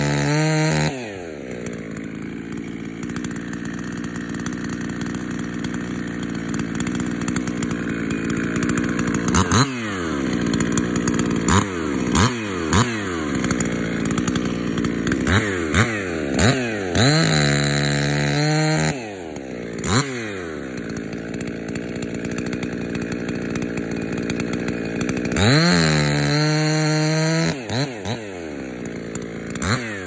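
Two-stroke chainsaw bucking a sweet gum log. Long stretches of steady running under load in the cut alternate with revs to full throttle and quick throttle blips between cuts. After each rev the pitch falls back.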